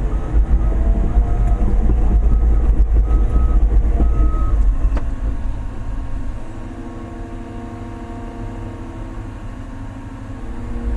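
Large excavator's diesel engine working hard for about five seconds, then easing to a lower, steadier running sound.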